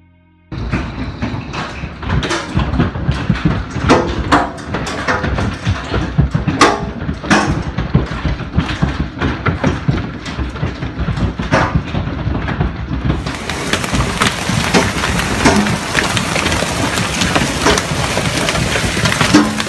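Heavy hail pelting down: a dense clatter of hailstones striking, with frequent louder sharp cracks. A brighter hiss joins about two thirds of the way through.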